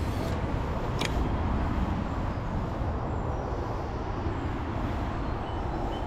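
Steady low rumble of road traffic and wind, with one sharp click about a second in.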